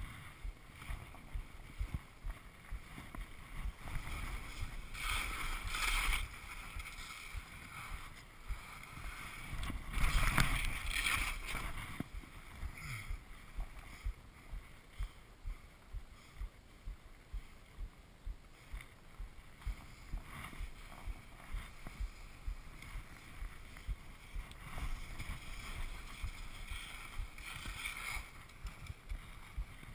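Skis scraping and swishing on steep snow, turn after turn, in a regular rhythm of about one to two swishes a second, with louder, longer slides about five and ten seconds in.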